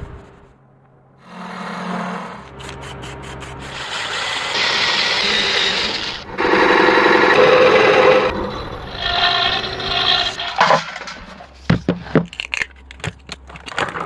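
Hand and power tools working wood: scraping and rubbing, then a few seconds of loud steady noise from the tool on the wood, then a quick series of sharp knocks near the end.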